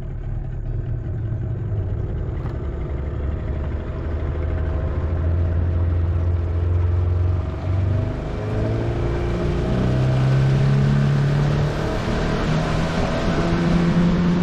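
Small outboard motor pushing a boat along at speed, its pitch shifting up and down in the second half as the throttle or load changes, over a rush of wind and water.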